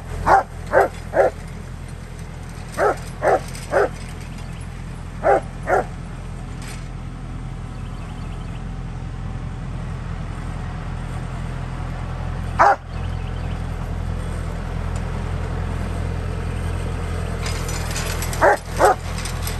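A dog barking in short groups of two or three, with a long gap midway broken by a single bark, over the steady low drone of a tractor engine running.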